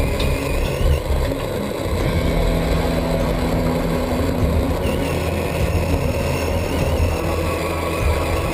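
Traxxas Summit RC truck driving, its electric motor and gears whining and rising and falling in pitch with the throttle, heard over a steady low drivetrain hum.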